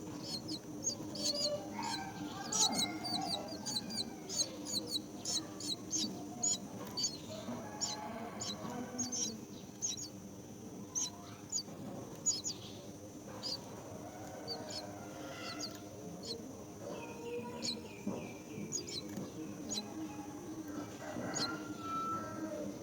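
Birds chirping at a nest: a long run of short, high chirps repeated every fraction of a second, with softer, lower calls in between.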